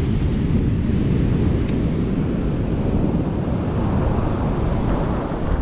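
Wind buffeting the microphone over the steady rush of surf breaking on the beach.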